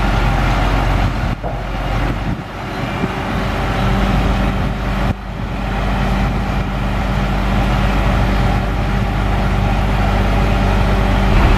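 International DT466 diesel engine of a dump truck running steadily while the hydraulic hoist lowers the dump bed.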